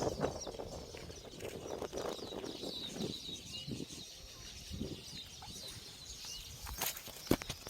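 Small birds chirping and twittering steadily in the background, with a couple of sharp clicks near the end.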